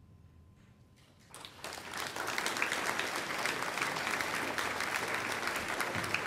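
A hush, then an audience breaks into applause about a second in, quickly building to steady clapping.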